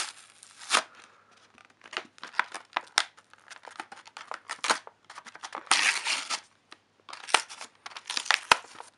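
Cardboard toy-car box and its plastic packing being opened by hand: irregular bursts of tearing and crinkling, with a few sharp clicks.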